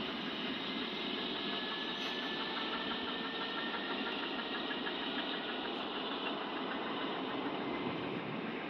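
ALe 642 electric multiple unit pulling away from the station: a steady rumbling hiss of the moving train, with a faint high whine in the middle.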